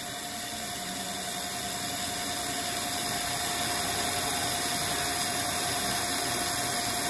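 Carbide-insert milling cutter on a Bridgeport-type mill taking a light finish pass of about two thousandths across a 4140 heat-treated steel shaft, with a steady tone over the hiss of spray-mist coolant, growing gradually louder as the cutter moves into the cut. On this pass the cutter chatters a little.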